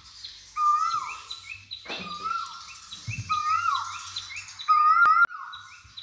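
Asian koel calling over and over, each call swelling and then sliding down in pitch, about once a second, with higher chirps of other birds and a faint rush of water from the weir behind. Two sharp clicks about five seconds in.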